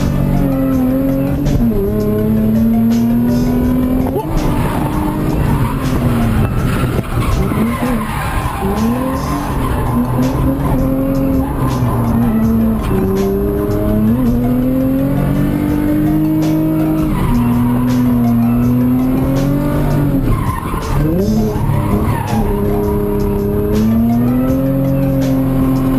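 Car engine revving hard and rising and falling in pitch again and again, with tyre squeal, as in drifting on a track.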